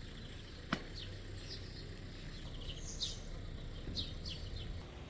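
Songbirds chirping, with short high calls coming again and again over a low outdoor rumble, and one sharp click a little under a second in.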